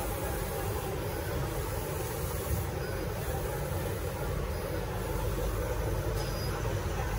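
Steady low machine hum and background noise around a running wide-format dye-sublimation printer, with no distinct strokes or rhythm.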